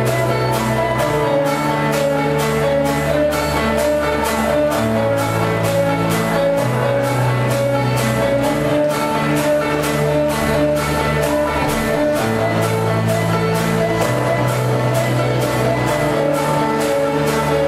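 Music with a steady beat of about three beats a second over a bass line that changes note every couple of seconds.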